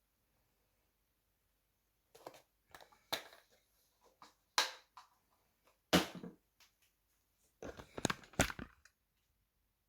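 Scattered sharp clicks and knocks of things being handled in a small room: single ones every second or so, then a quick cluster of several near the end.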